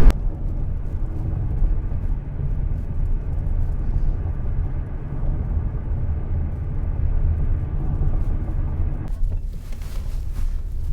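Steady low road rumble of a car driving on the highway, heard inside the cabin. Near the end a brief hiss rises in the higher range over the rumble.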